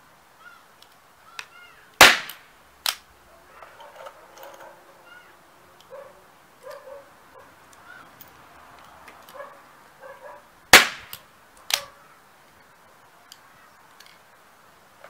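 Ramset 7200 semi-automatic powder-actuated tool firing its caseless nitrocellulose power pellets twice, about nine seconds apart, driving fasteners into a board. Each shot is a sharp bang, followed just under a second later by a smaller sharp crack.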